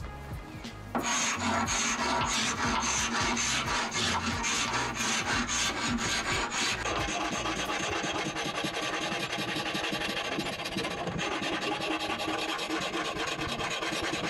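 A hand-held carpet scraper dragged in quick, repeated strokes along the grain of a solid-wood chest of drawers, scraping off the thin old varnish. The scraping starts about a second in.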